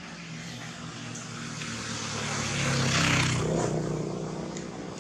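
A passing engine: its hum swells to its loudest about three seconds in, then fades away.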